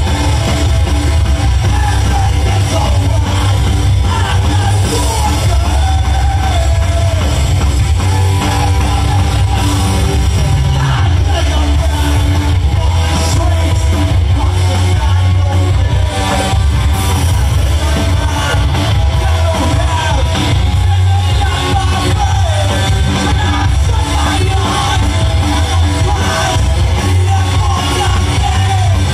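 Rock band playing live and loud: electric guitar, bass and drums with a singer shouting the vocals, heard from the audience.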